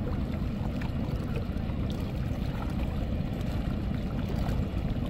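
Steady low rumble of wind buffeting the microphone and river water.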